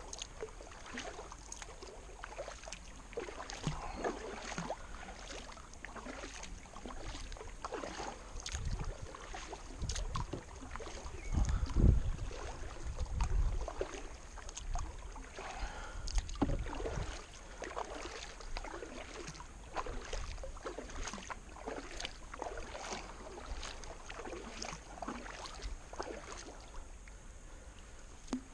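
Kayak paddle strokes dipping and splashing at a steady, regular pace as the kayak is paddled upstream against the current. A low rumble swells a few times around the middle.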